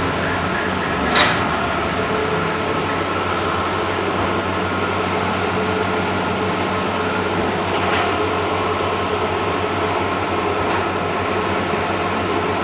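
Bluewin large-format outdoor digital printer running: a steady mechanical whir and hum, with a sharp click about a second in and a few fainter clicks later.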